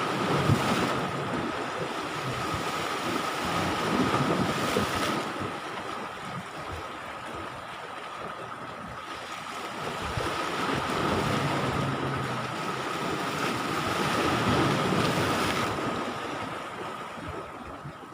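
Sea waves washing onto the beach, the surf noise swelling and ebbing every few seconds, with wind buffeting the microphone. A thin steady whine runs underneath.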